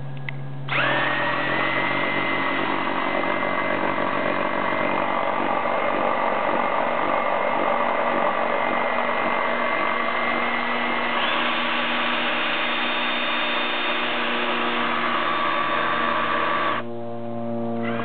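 Cordless drill running steadily, spinning an outboard lower unit's four-spline driveshaft through a rubber hose coupler to test its hydro-electric gear shift. The drill's whine starts just under a second in, steps up in pitch about eleven seconds in, and stops about a second before the end.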